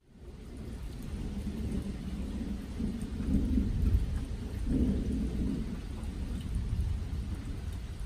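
Thunderstorm: low rolling thunder over steady rain, fading in at the start, with the rumble swelling about three seconds in and again around five seconds.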